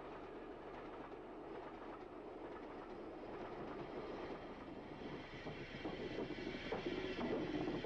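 Steam tank locomotive moving off slowly, with a steady hiss of steam and running noise that grows louder, and a quick rhythmic clatter coming in near the end.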